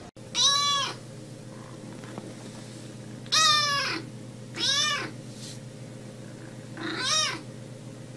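Small kitten meowing four times, each a short high-pitched call that rises and falls, over a steady low hum.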